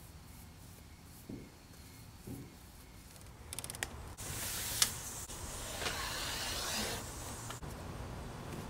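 Handling noise on a sheet-metal worktable as a leather hide and a steel straightedge are moved about. A few soft thumps come first, then a quick rattle, then about three seconds of rustling and scraping with one sharp click.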